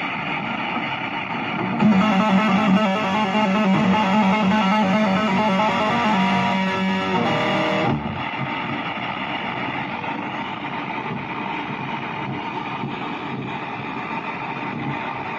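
Electric guitar played through an amplifier: a run of distinct picked notes for several seconds, then a blurrier, sustained texture for the rest.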